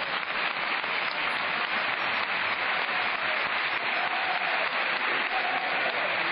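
Football stadium crowd applauding, a steady, even wash of clapping and crowd noise.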